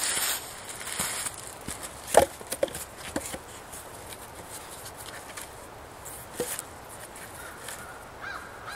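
Footsteps rustling through dry fallen leaves, then a wooden log set down on top of a stack of logs. There is one sharp knock about two seconds in, a few lighter knocks just after, and another around six seconds. A crow caws once near the end.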